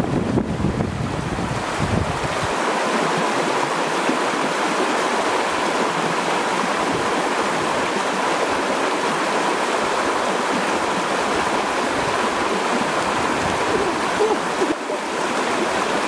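Shallow river rushing over rocks, a steady wash of flowing water, with wind rumbling on the microphone for the first two seconds or so.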